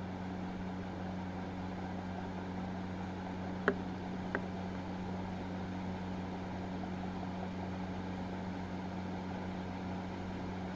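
Steady low background hum, like a fan or an electrical appliance, with two light clicks a little under halfway through.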